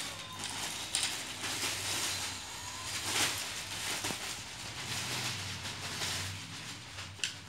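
Clear plastic wrapping crinkling and rustling as a packaged fishing rod is handled, with irregular sharper crackles, over a low steady hum.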